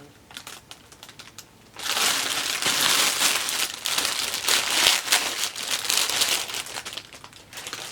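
Plastic wrapping around an Easter basket crinkling loudly as it is handled and pulled off, starting about two seconds in and dying down near the end.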